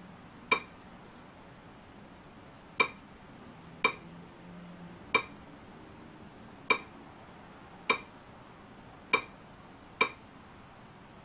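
Eight sharp single clicks, irregularly spaced one to two seconds apart, each one a letter being selected with the pointer on an on-screen keyboard.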